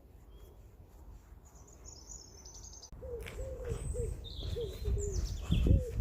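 Small birds singing high and thin, then from about three seconds in a pigeon cooing in a run of short, low, rounded notes over a low rumble that grows louder near the end.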